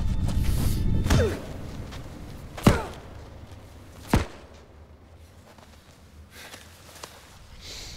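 Three sharp, heavy blows about a second and a half apart, each followed by a short falling ring, after a low rumbling drone fades out about a second in.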